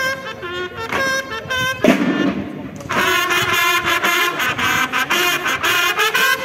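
Banda de guerra (drum and bugle corps) playing: bugles sounding short bursts of notes over snare drum strokes, then from about three seconds in a fuller, continuous passage of bugles and drums together.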